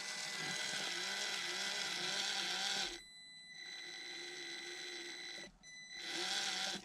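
Traxxas TRX-4M crawler's small brushed motor and drivetrain whirring under throttle, with a steady high electronic whine over the gear noise. It stops twice briefly when the throttle is let off. The owner suspects a dead battery is making it run poorly.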